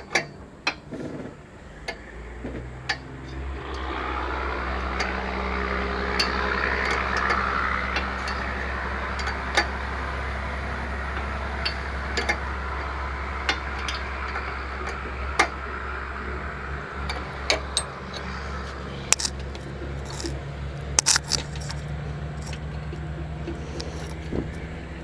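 Scattered metal clinks and scrapes of wrenches and fittings being worked on truck air lines. Under them runs a steady low hum, and a rushing noise covers much of the first two-thirds.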